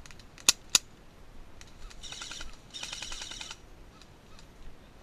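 Two sharp shots from an airsoft gun a quarter second apart, then a bird calling in two rapid trilled phrases.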